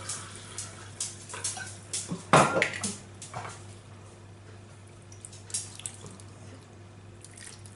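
White wine poured from a bottle into a glass of broth, with a sharp knock about two and a half seconds in as something is set down. Then the glass of broth and wine is poured over chicken pieces in a glass baking dish.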